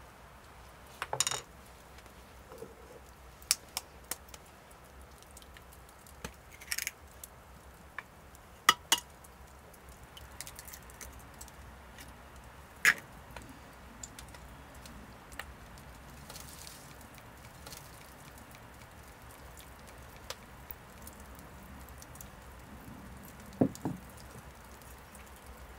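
Scattered sharp taps and clinks of kitchen utensils, a wooden spoon and a small glass bowl, against an enamel mixing bowl during dough-making, a few seconds apart, over a faint steady outdoor background.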